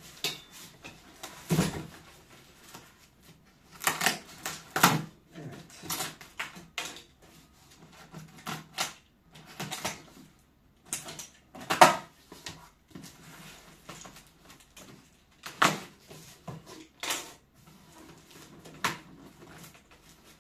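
A sturdy cardboard box being handled and worked open: irregular knocks, clicks and scrapes, the loudest knock about 12 seconds in.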